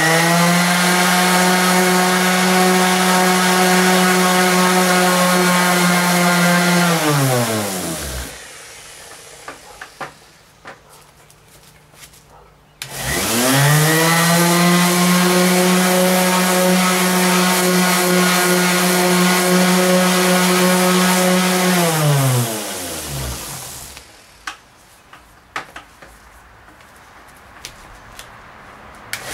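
Corded 5-inch random orbital sander with a 220-grit disc, sanding down freshly applied gelcoat on a fiberglass boat hull. The motor runs at a steady pitch, winds down and stops about seven seconds in, restarts after a pause with a few light taps, runs again, winds down, and starts up once more at the very end.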